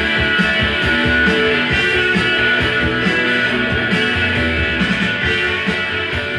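Guitar music playing from a vinyl record on a Dual 1241 belt-drive turntable fitted with a Stanton 500 cartridge.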